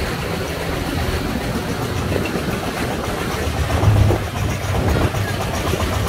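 Single-cylinder diesel engine of a công nông farm truck running steadily with a low throb, briefly louder about four seconds in.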